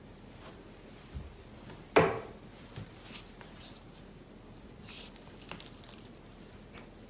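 Slime being squeezed and poked by hand: one loud sudden sound about two seconds in, then a scatter of faint short clicks.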